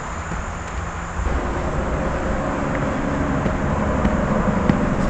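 A steady engine drone from a distant vehicle or aircraft, coming in about a second in over steady background noise.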